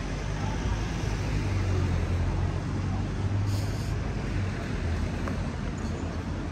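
Street traffic with a heavy vehicle's engine running close by: a steady low drone that swells in the middle. There is a short hiss about three and a half seconds in.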